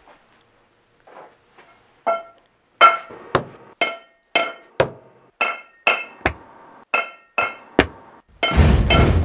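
Metal pipe struck again and again, each clank ringing with a clear pitch. The strikes come in a steady rhythm about every half second, every third one heavier, faint at first and louder after a couple of seconds. A loud burst of music comes in near the end.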